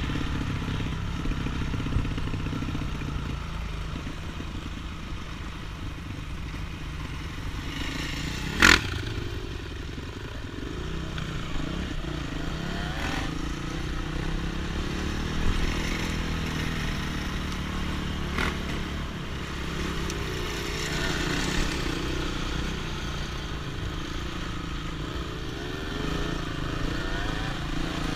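Trail motorcycle engine running and changing revs while riding over rough ground, with clattering knocks from the bike; one very loud sharp knock about a third of the way in and a few weaker ones later.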